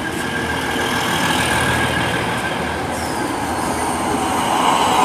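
Batara Kresna diesel railbus passing alongside at close range: a steady, loud rumble of engine and wheels on the rails. A faint high whine slides downward in pitch about three seconds in.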